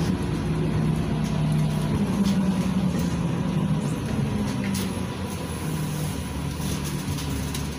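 Interior of a LiAZ 5292.67 city bus under way: its YaMZ-53624 engine running steadily over road rumble, with a faint steady high whine.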